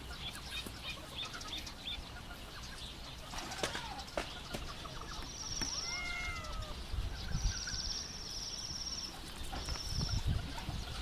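Chickens moving about: a short call that glides up and down about six seconds in, with scratching and fluttering and a few wing flaps toward the end. A high trilling chirp repeats in the background in several bouts.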